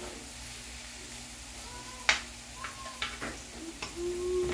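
Eggs and tomatoes frying in a frying pan with a steady low sizzle, while a metal spoon scrapes and taps against the pan a few times, the sharpest tap about two seconds in.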